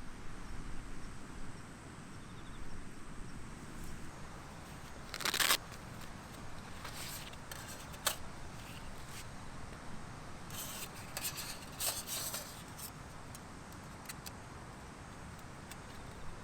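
Steady wind noise with intermittent rustling and crinkling of camping gear being handled, the loudest burst about five seconds in and a cluster of them near the end.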